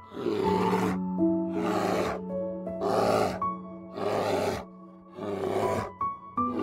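Brown bear roaring again and again, about once a second, each call harsh and short, over gentle background music with held notes.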